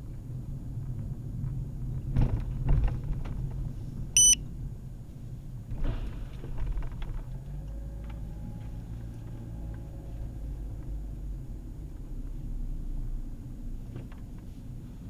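A steady low rumble, with a few knocks about two seconds in and a single short, high electronic beep about four seconds in.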